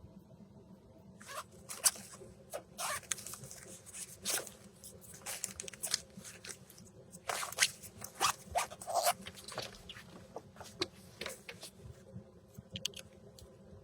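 Rustling, crinkling and clicking as a string of Christmas lights is handled and hung. The noises come in irregular bursts starting about a second in, and thin out to a few clicks near the end.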